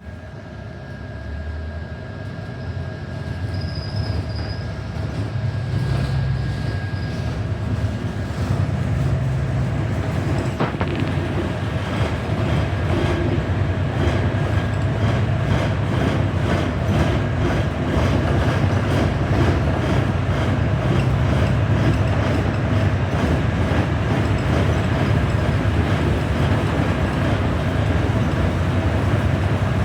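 New Flyer XD40 diesel city bus heard from inside the cabin, pulling away and rising in loudness over the first several seconds, then running steadily. A rhythmic clatter from the snow chains on its tires sets in as it gathers speed.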